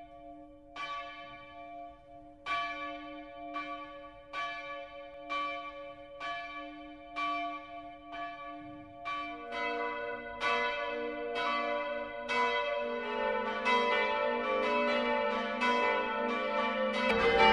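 Church bells ringing: a single bell tolls steadily at about one stroke a second, each stroke ringing on. About halfway through, lower-pitched bells join, and the strokes come faster, overlapping and growing louder into a full peal.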